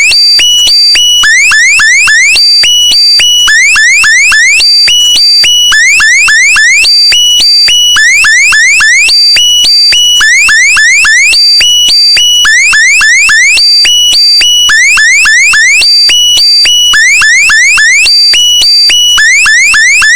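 A loud looping electronic alarm-like sound effect: quick rising chirps alternate with steady beeps, and the pattern repeats about every two seconds.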